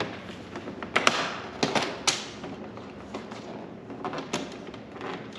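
Light taps and knocks of hands working on a bolt-on rear trunk spoiler while its screws are started by hand: a handful of short clicks and knocks spread over a few seconds.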